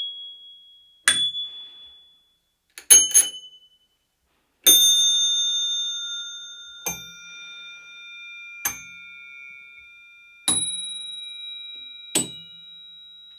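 A series of different bicycle bells, cheap and premium, rung one after another, each with one sharp ding (one a quick double ding), in a range of different tones. Most die away within a second or two, while the bell struck about five seconds in rings on for several seconds.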